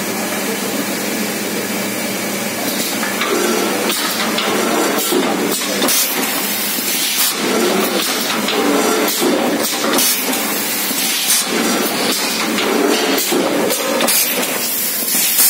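Automatic PET bottle blow moulding machine running: a steady, loud clatter of mechanical knocks and clanks, with repeated hisses of compressed air.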